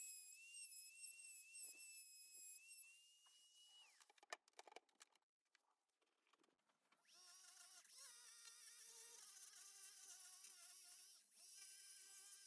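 Faint, thin high-pitched whine of a die grinder running, broken about four seconds in by a few clicks and a short dead gap, then a lower whine with many overtones.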